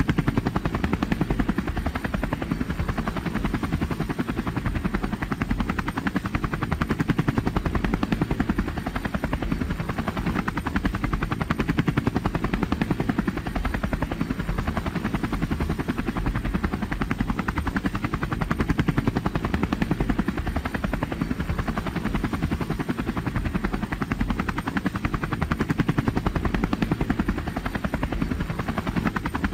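Robinson R44 Clipper II piston-engined helicopter in flight, heard from inside the cabin: a steady, fast chop of the rotor blades over the drone of the engine.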